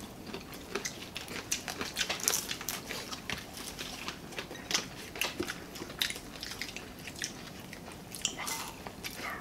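People chewing and biting into fried dried fish, with many irregular crunchy clicks.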